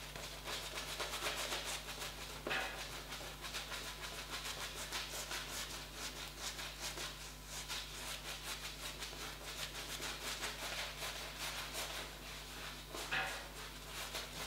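Shaving brush working shaving cream over the face in quick, wet rubbing strokes, several a second, building a fresh layer of lather over one that has dried.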